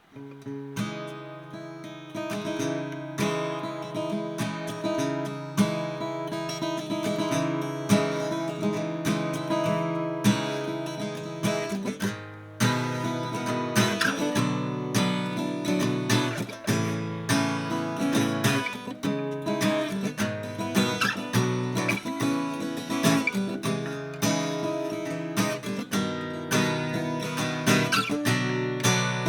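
1959 Gibson LG2 flat-top acoustic guitar being played: strummed chords that ring out, the playing turning busier with more frequent strokes about halfway through.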